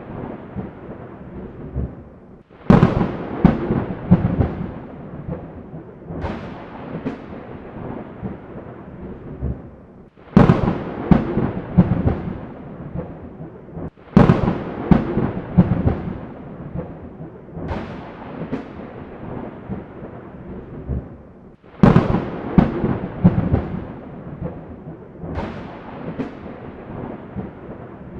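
Thunderclaps, each a sudden sharp crack that rumbles and crackles away, coming about every three and a half to four seconds, seven in all, over a steady hiss of rain.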